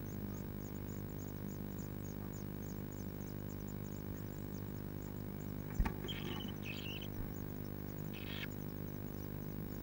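Blue tit nestlings begging with faint, rapid, high-pitched calls over a steady electrical hum. About six seconds in, a sharp knock is followed by a few louder short calls.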